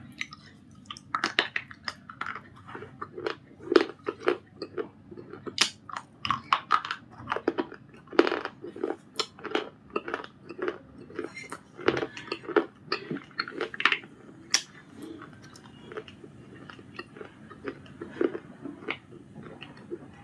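Biting and chewing Punjab biscuit coated with white khadi (chalk) paste, in a rapid run of sharp, crisp crunches that thin out over the last few seconds.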